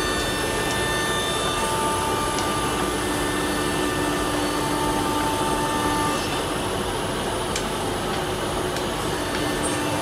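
CNC nesting router running: a steady machine rush from the spindle and dust extraction, with a few held whining tones that change pitch slightly now and then as the cut goes on.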